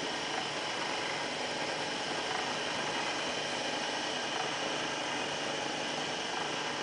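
Small electric screw oil press running: the electric motor and worm gearbox turn the pressing screw that cold-presses seeds into oil, a steady, even mechanical running sound.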